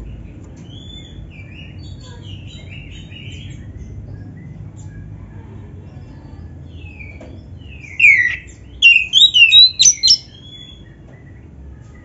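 Black-breasted oriental magpie-robin (kacer) singing: soft scattered whistles and chirps at first, then about two-thirds of the way in a loud, fast run of rising and falling whistled notes lasting about two seconds. A low steady hum sits underneath.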